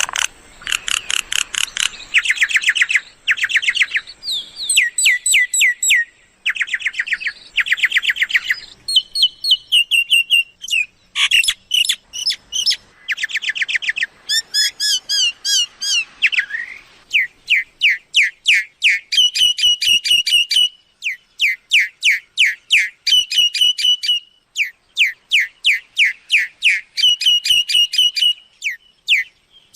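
Myna calls used as a decoy lure: rapid trains of chirping and whistled notes in bursts of a second or two, repeating throughout.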